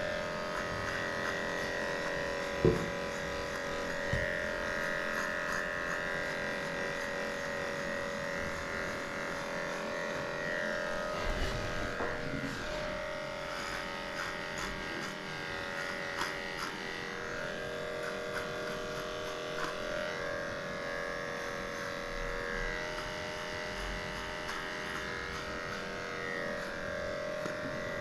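Cordless electric dog clipper running steadily as it shears a schnauzer's matted coat, its motor hum shifting slightly in pitch as the blade meets the fur. A single short knock about three seconds in.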